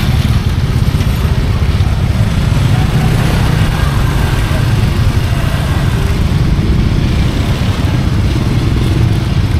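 Steady street traffic rumble, with motorcycles among it.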